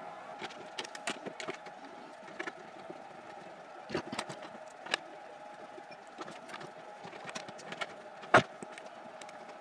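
Clicks and knocks of cables and connectors being handled and plugged into a subwoofer's rear amplifier plate, the sharpest knock coming near the end, over a steady background hum.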